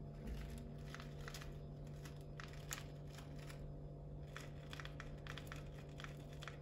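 Faint, irregular small clicks and crinkles, several a second, of coloured sugar-bead sprinkles being handled and pressed onto glazed kulich cakes, over a low steady hum.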